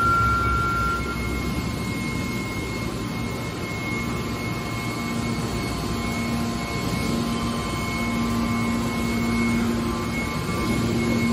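Hydraulic scrap metal baler's power unit running: a steady machine drone with a low hum that grows stronger about halfway through and a faint high whine.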